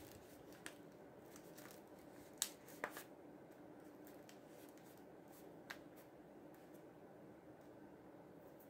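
Near silence with a few faint, short paper crinkles and taps as a printed copy-paper wrapper is pressed down onto hot glue; the loudest come about two and a half to three seconds in.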